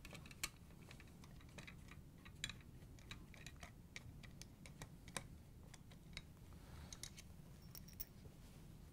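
Faint, irregular clicks and ticks of a flathead screwdriver turning screws out of a KitchenAid stand mixer's metal gear housing, with a few sharper clicks among them.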